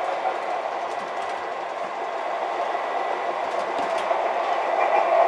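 An MTH Proto-Sound 3 O-gauge PCC model streetcar running on MTH RealTrax three-rail track: a steady whir of motor and wheels that slowly grows louder, with a few faint clicks.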